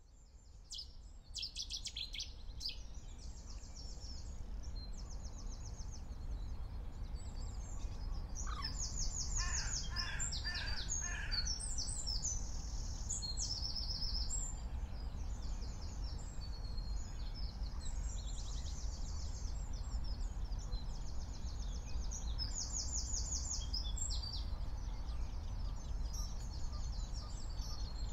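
Dawn chorus of many songbirds singing at once, with overlapping high trills and repeated phrases. About nine seconds in, a harsher, lower-pitched call is repeated several times. A steady low rumble runs beneath.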